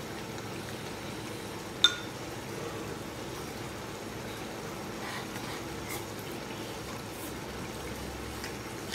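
A wok of dry-pot bullfrog simmering steadily over a portable butane burner, with one sharp clink of chopsticks against a ceramic bowl about two seconds in and a few faint clicks later.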